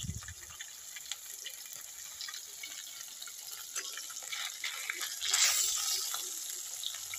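Turmeric-coated fish pieces frying in oil in a steel wok over a wood fire: a steady sizzle with scattered crackles and spits, swelling louder for about a second around five seconds in.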